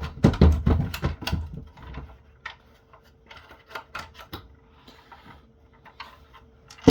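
Plastic housing of a small UPS battery backup being opened and handled: a quick run of clicks and knocks in the first two seconds, then scattered sharp taps and clacks.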